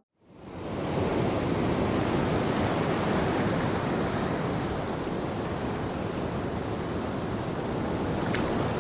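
Steady rush of sea water and wind, fading in over the first second, with a few faint ticks near the end.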